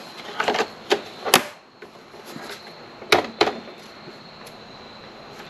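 Sharp clicks and knocks of parts and tools being handled during a wiring install: a quick run of them in the first second and a half, the loudest about a second and a half in, then two more about three seconds in.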